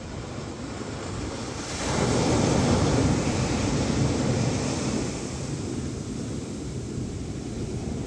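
Atlantic Ocean surf on a sandy beach: a wave breaks about two seconds in with a loud rush of water, which eases after a few seconds into a steady wash of foam up the sand.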